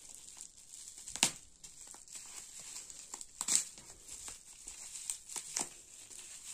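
Plastic bubble wrap crinkling and crackling in the hands as the tape wrapped around it is picked off, with irregular sharp crackles, two of them louder, about a second and three and a half seconds in.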